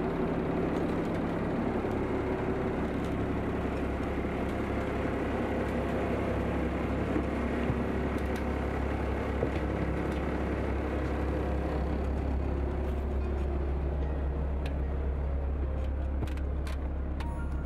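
Small passenger ferry's engine running with a steady low drone, heard from inside the cabin, with a few light clicks near the end.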